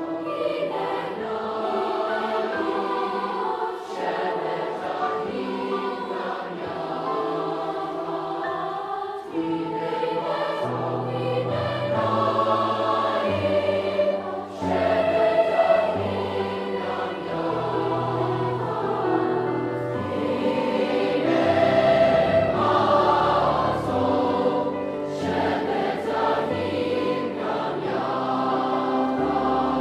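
Background music with choir voices singing held chords; a low bass part comes in about ten seconds in.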